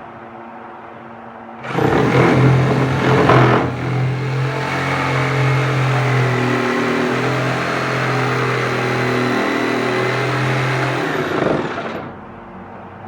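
An electric power tool's motor is switched on about two seconds in, runs with a steady hum for roughly ten seconds, loudest and roughest in its first two seconds, then is switched off and winds down near the end.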